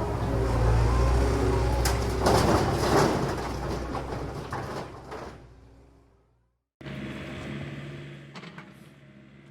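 Excavator working: a low diesel engine drone under load with the hiss and whine of its hydraulics and a cluster of knocks about two seconds in, fading out to silence. Then, after a brief gap, a quieter excavator engine idling steadily with a few light clicks.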